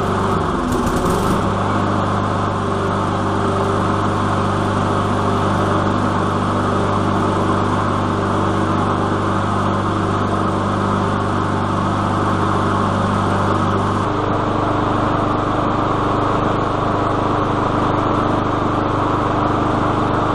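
Walk-behind lawn mower's small gasoline engine running steadily; about 14 seconds in its tone shifts slightly.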